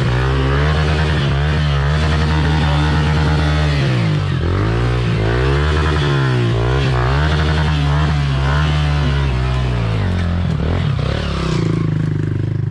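Off-road motorcycle engine revved up and down over and over in short throttle blips, settling to a steadier, lower running about ten seconds in.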